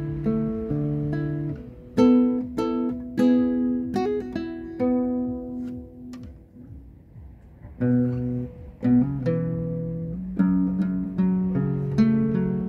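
Acoustic guitar played solo, picking single notes and broken chords that ring and decay. About six seconds in the notes die away, and the playing picks up again a second or two later.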